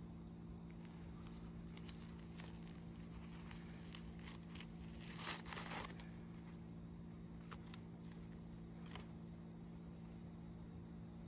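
A brief crinkling, tearing rustle about five seconds in, with scattered faint clicks and crackles over a steady low hum.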